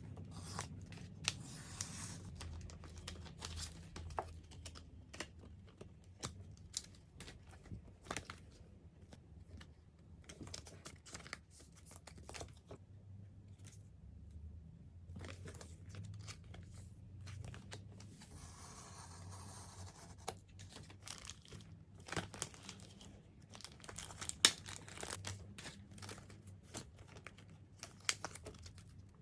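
Packaging being torn open and crinkled by hand, with irregular crackles and sharp snaps while merchandise is unboxed.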